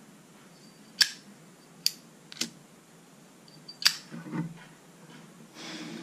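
Zippo lighter being worked by hand: four sharp metallic clicks from its hinged lid and mechanism, the loudest about a second in and just before four seconds in, with the lid snapped shut by the end.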